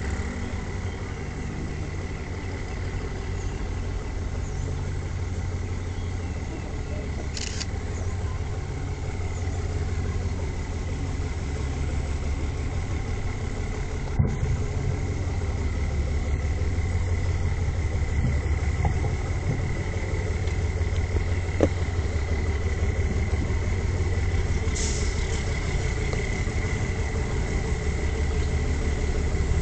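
Diesel locomotive engine running as it hauls a long train slowly toward the listener, a steady low rumble growing gradually louder.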